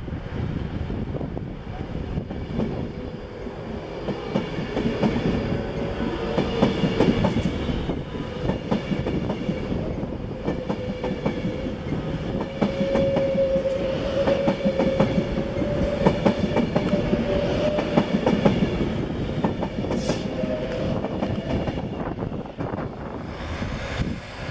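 Avanti West Coast Class 390 Pendolino electric train running past along the platform, its wheels clicking rapidly over the rail joints, with a steady tone beneath. There is a brief high squeak about twenty seconds in.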